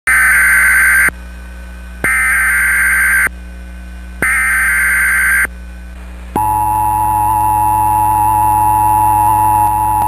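Emergency Alert System SAME header: three harsh buzzing digital data bursts, about a second each with short gaps between, followed from about six seconds in by the steady single-pitch NOAA Weather Radio warning alarm tone. Together they announce an incoming weather warning, here a severe thunderstorm warning.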